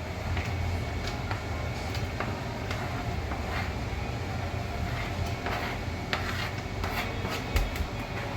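Steady low hum of a kitchen range-hood exhaust fan, with scattered light clicks and clacks of cooking in the pot and one louder thump near the end.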